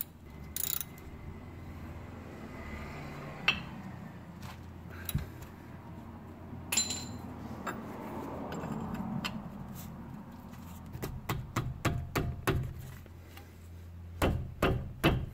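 Hand tools clinking on the steel brake caliper and its 14 mm slide-pin bolt as a wrench is worked on it. A few separate clicks come first, then a quick run of clicks and clinks over the last few seconds.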